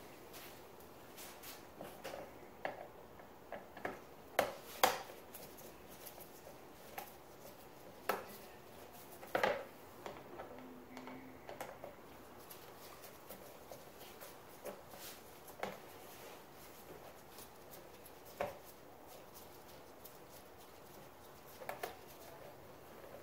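Scattered clicks and taps of a screwdriver and gloved hands working at a jet-ski's handlebar by the throttle housing, the sharpest near five seconds in and again near ten.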